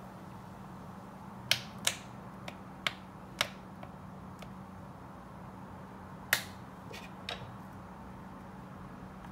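Tteokbokki sauce boiling in a frying pan, with scattered sharp pops of bursting bubbles over a steady low hum. The pops come in a cluster in the first half and once more loudly later.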